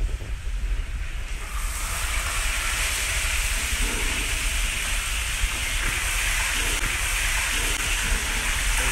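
Raw fish pieces laid into hot oil in a frying pan, setting off a steady sizzle that starts about a second and a half in, over a low hum.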